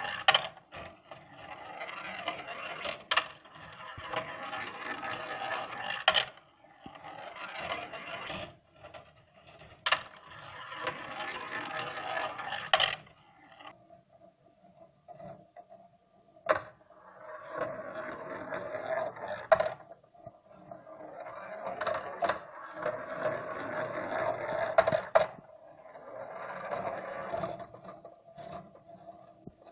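Steel balls rolling along a 3D-printed plastic marble track in runs of a few seconds, each run ending in a sharp clack as a ball drops and strikes. A faint steady hum from the 28BYJ-48 stepper motor turning the lift wheel runs underneath.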